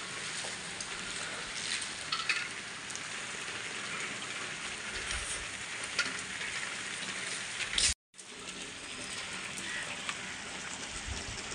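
Steady rain falling: an even hiss with scattered sharp ticks of drops. It cuts out for a moment about eight seconds in.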